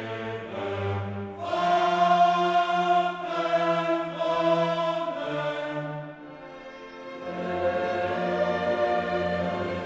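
Classical choral music: a choir singing long held chords with orchestra, dipping quieter for a moment past the middle.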